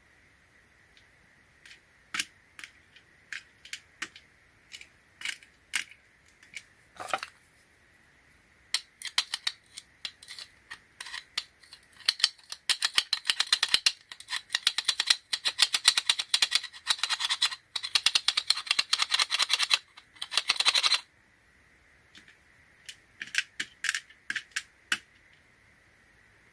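Small metal clicks and taps from handling a Torx screwdriver and a small screw, with a dense run of fast rattling clicks in the middle that stops abruptly about 21 seconds in.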